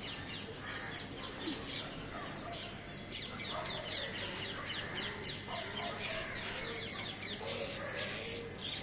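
Small birds chirping busily, a fast run of quick high downward notes, with a pigeon's low cooing coming in near the end.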